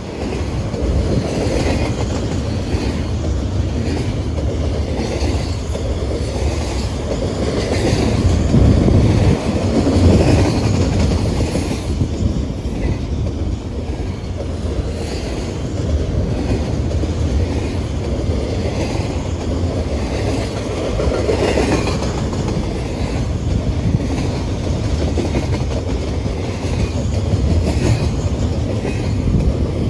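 Double-stack intermodal well cars of a freight train rolling past, a steady rumble of steel wheels on rail with repeated clicks as the wheels cross rail joints.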